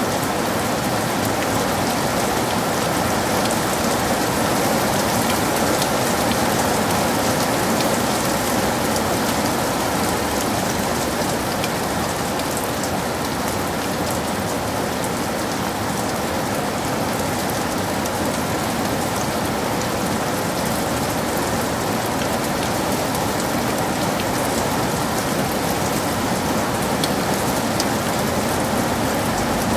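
Heavy rain falling steadily, a dense even hiss with the fine patter of individual drops striking surfaces.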